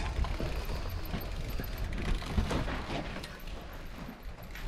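Mountain bike coasting down a rough trail, its freehub ratchet ticking, with scattered knocks from the ground.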